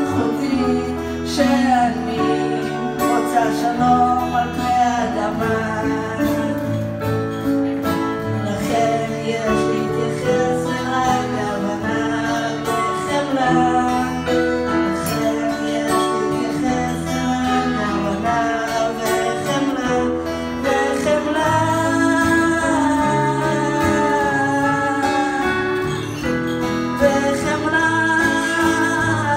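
A live song: female vocals sung into a microphone over strummed acoustic guitar and keyboard.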